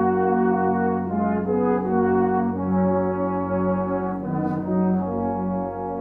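Brass band playing slow, sustained chords as an instrumental introduction, the chord changing about every second.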